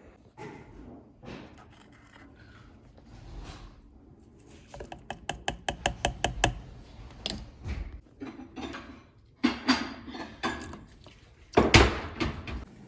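Handling noises of clicks, knocks and thuds, with a quick rattling run of about six clicks a second a little past the middle and a heavy thump near the end.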